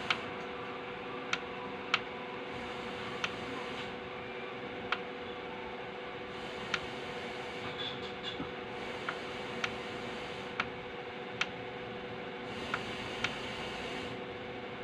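Konzert KCS-212 amplifier's FM tuner scan-searching the band: a steady hiss with a faint hum through the speaker, broken by sharp clicks roughly once a second at irregular spacing as it steps between frequencies without locking onto a station.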